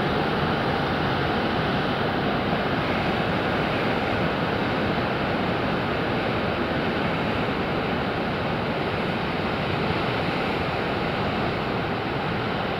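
Heavy Pacific surf breaking among offshore rocks, heard as a steady, even wash of noise with no single wave standing out. Tape over the microphone dulls the top end.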